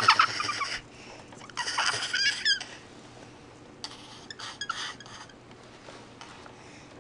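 A baby's high-pitched squeaks in three short bursts, the first right at the start, one about two seconds in and one about four seconds in.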